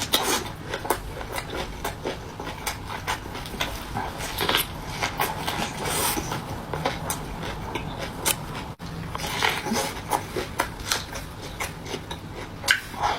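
Close-up eating sounds: chewing and mouth smacks, with many short sharp clicks scattered throughout.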